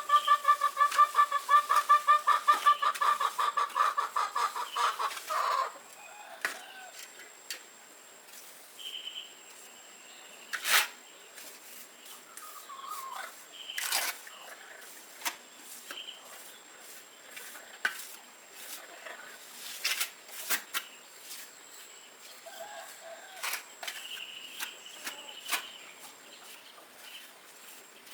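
A chicken clucking in a rapid run of pulsing calls that stops about five seconds in. After that come scattered sharp knocks and a few faint high chirps.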